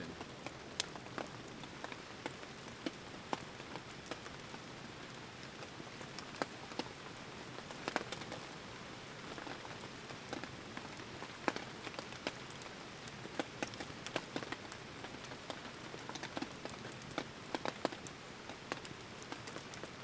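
Wood campfire crackling: scattered, irregular sharp pops and ticks over an even, steady hiss.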